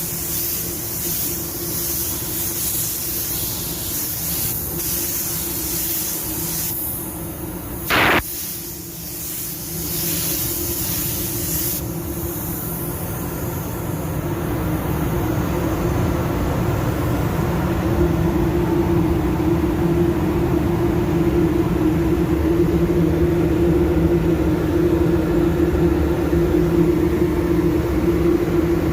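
Air spray gun hissing in passes with short breaks, stopping about twelve seconds in, over a steady machine hum with a low tone that grows louder later. A brief loud tone sounds about eight seconds in.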